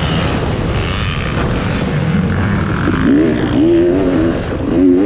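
Dirt bike engine racing, heard from the bike itself. It runs at high revs, then from about halfway rises and falls in pitch several times as the throttle is worked.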